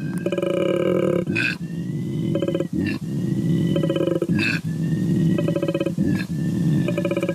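An animal's low, rough calls, nearly without pause, with stretches of rapid buzzing pulses.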